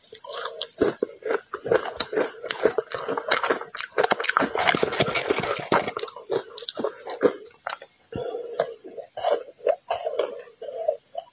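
Close-up biting and chewing of soft, powdery ice mixed with matcha green tea powder, a dense run of fine crunching crackles that is busiest in the middle.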